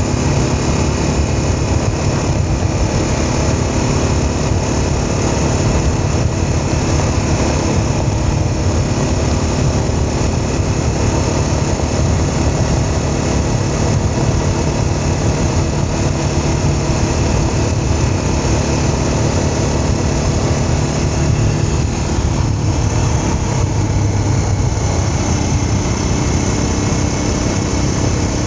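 Vehicle driving steadily: continuous engine hum and road noise, with a strong low drone.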